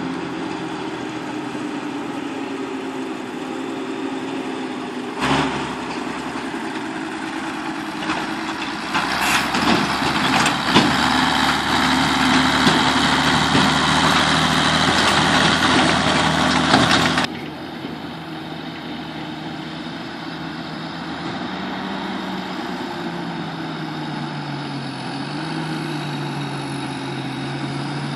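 Diesel farm tractor engines running steadily as tractors haul silage trailers. In the middle there is a louder, clattering stretch of several seconds that drops back suddenly.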